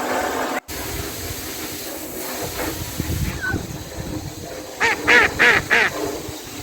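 Ducks quacking: four quick calls in a row about five seconds in, over a steady hiss.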